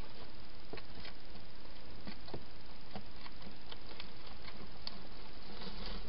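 Irregular sharp clicks and crackles, a few a second, from a wild hedgehog foraging, over the steady hiss of a trail camera's microphone. The clicks come thicker near the end, with a low rumble.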